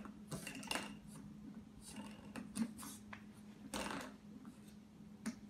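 Bulldog puppy chewing and mouthing a small hard object at the foot of a door frame: scattered small clicks and scrapes, over a steady low hum.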